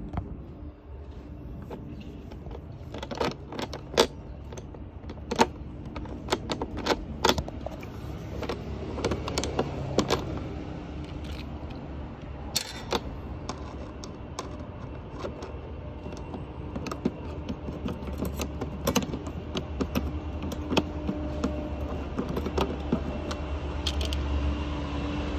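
Husqvarna motorcycle's four-stroke single-cylinder engine idling steadily, with many sharp irregular clicks and ticks over the low running sound.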